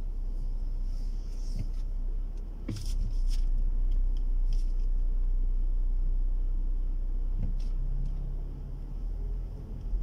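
Low rumble of engine and road noise heard inside a moving car's cabin, growing louder about three seconds in and easing off near the end, with a few light knocks.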